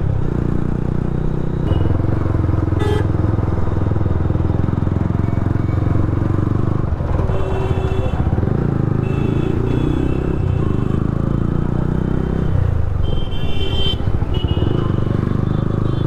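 Yamaha sport motorcycle's engine running while riding slowly through city traffic, with traffic noise around it. Short high-pitched tones sound a few times, mostly about halfway through and near the end.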